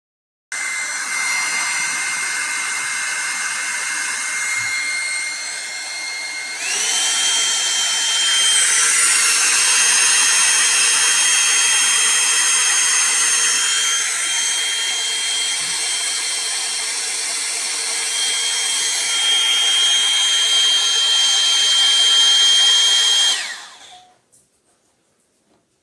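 Revlon One-Step Volumizing hot-air brush dryer switched on and blowing, its motor running with a steady high whine. About six and a half seconds in it steps up to a higher speed, growing louder with the whine jumping higher. Near the end it is switched off and winds down.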